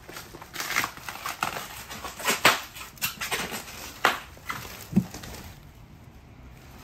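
Shipping box and packing material being handled during unpacking: irregular crinkling and crackling with a few sharper snaps, dying down about five seconds in.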